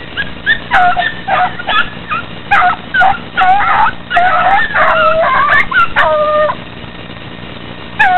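Hound puppies baying while running a hare: a string of loud yelping cries that swoop up and down, ending in a longer held howl about six seconds in, then a quieter stretch.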